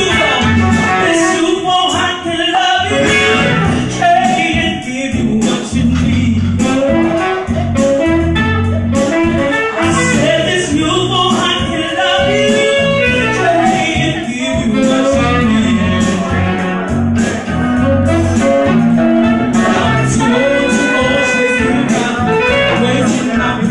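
A woman singing into a handheld microphone over instrumental backing music, loud and continuous.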